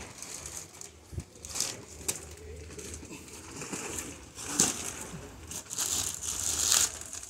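Plastic sacks and bags crinkling and rustling as they are handled and set down, in several short spells, the loudest near the end.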